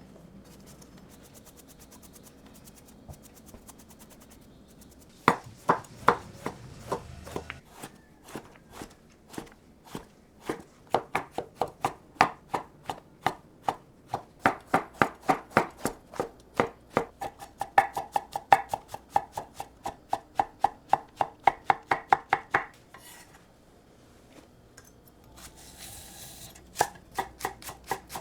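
Kitchen knife chopping on a cutting board in quick, even strokes, about four a second. It starts about five seconds in, stops briefly near the end, then starts again.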